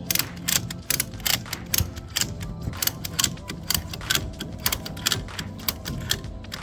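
Retractable ratchet strap being cranked tight: a run of sharp clicks in quick, irregular strokes, over background music.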